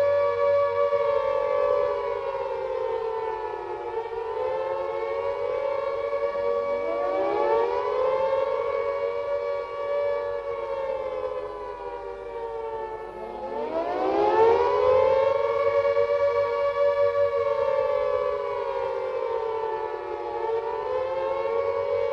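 Air raid siren sounding a chord of several tones at once, its pitch sagging and winding back up twice.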